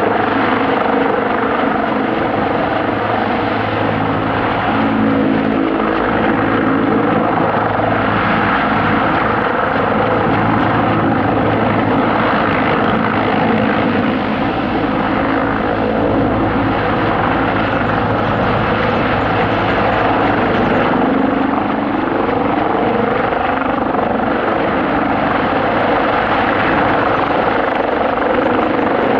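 CH-53E Super Stallion heavy-lift helicopter running, its three turboshaft engines and rotor making a loud, steady drone with several held tones that shift slightly in pitch now and then.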